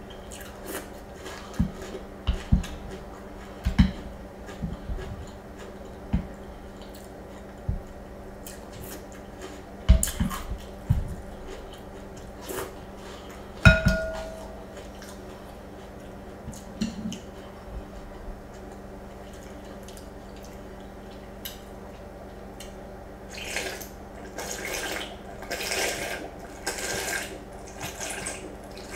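Wooden spoon knocking and scraping in a glass bowl of cereal and milk, with chewing, as sharp scattered knocks. In the last few seconds, slurping of the leftover milk drunk straight from the bowl.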